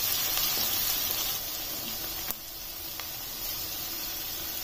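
Diced carrots and tempering seeds frying in hot oil in an iron kadai, a steady sizzle, stirred with a wooden spatula at first. A single click a little over two seconds in, after which the sizzle is quieter.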